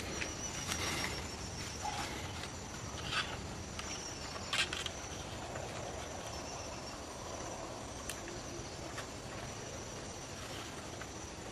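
A steady high insect drone, like crickets or cicadas, with scattered sharp clicks and rustles, the loudest about four and a half seconds in, from handling the wooden bow and brushing the vegetation.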